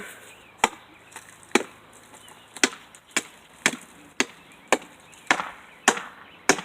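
Repeated blows chopping at dry dead wood on a tree, sharp separate knocks coming about two a second.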